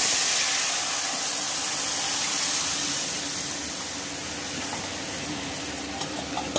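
Loud hiss and sizzle of liquid dal being poured into hot mustard oil with frying whole spices, slowly dying down as the oil cools under it.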